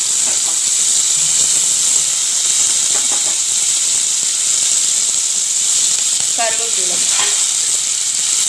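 Chopped tomato, shallots and green chilli sizzling steadily in hot oil in an aluminium pan as they sauté.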